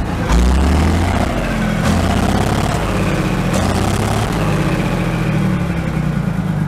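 A Jelcz truck's diesel engine without a turbocharger, running and heard close to its exhaust pipe. Its note rises and falls a few times.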